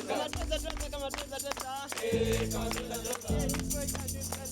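Background music: held low chords that change every second or so, under light steady percussion and a wavering singing voice.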